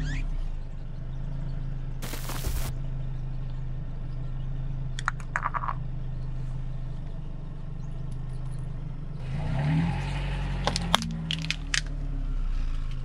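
A car engine idles steadily while its tyre crushes plastic toys filled with slime, giving clusters of sharp plastic cracks and crackles, with a short burst of noise about two seconds in. About ten seconds in, the engine note rises briefly as the car moves.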